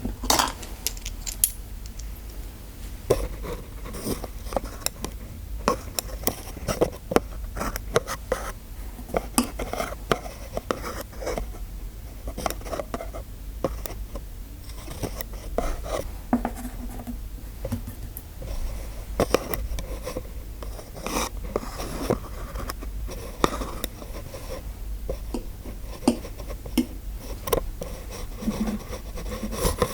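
Small metal dental instruments clinking, tapping and scraping close to the microphone in an irregular stream of sharp little clicks and short scrapes.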